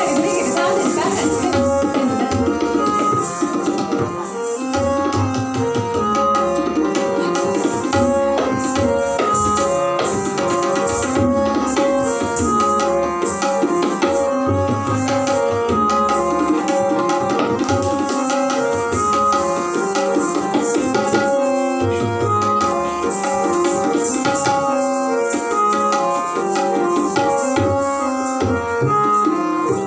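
Live tabla accompaniment for Kathak dance, playing a quick, dense rhythm under a short melodic phrase that repeats about every three seconds.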